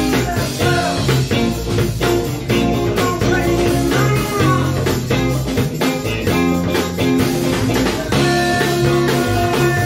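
Live band playing a blues-rock number: an electric guitar leads over a drum kit.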